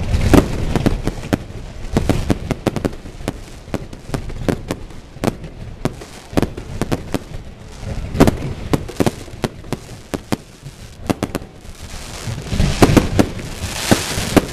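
Fireworks going off in a rapid, irregular barrage of sharp bangs and crackles. Heavier volleys come at the start, about halfway through, and near the end, where a hissing crackle swells under the bangs.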